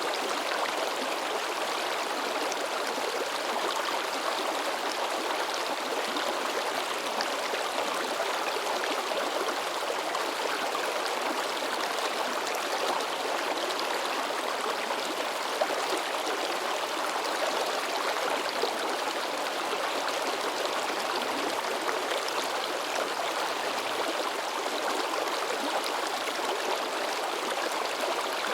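Shallow river water babbling and splashing steadily, with a couple of brief louder splashes partway through.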